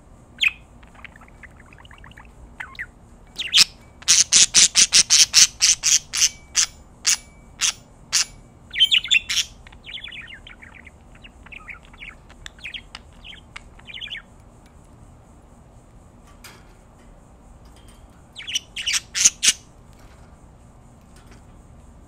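Pet budgerigars calling: a quick series of loud, sharp chirps about four seconds in, then softer warbling chatter, and another short burst of chirps near the end.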